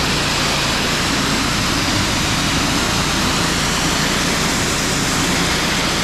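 Pressure washer running, its high-pressure water spray giving a loud, steady hiss over the even sound of the machine's engine.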